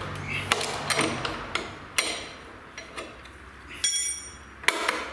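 A hand wrench clicking and clinking against the steel footpeg mount and its bolt, with irregular sharp metal knocks and one ringing clink just before four seconds.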